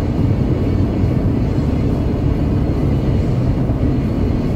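Steady low rumble of a vehicle cruising at highway speed, heard from inside the cabin.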